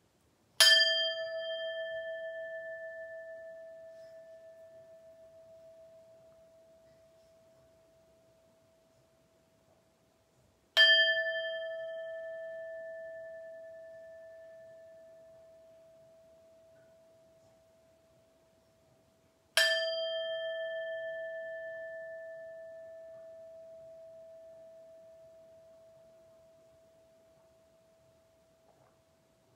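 Handheld metal singing bowl struck three times with a wooden mallet, about ten seconds apart. Each strike rings on as one steady, slowly fading tone, the last still ringing faintly near the end. The three strikes are the signal that closes the meditation: at the end of the third tone the participants open their eyes.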